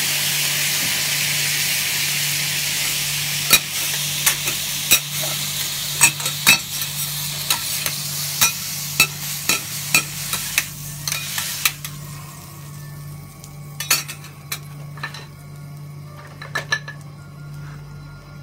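Liquid sizzling hard on a hot steel teppanyaki griddle as it hits the greens. The hiss is loudest at the start and dies away over about ten seconds, while two metal spatulas clack and scrape on the griddle at about two knocks a second. Near the end the sizzle has faded and only a few scattered spatula clicks remain.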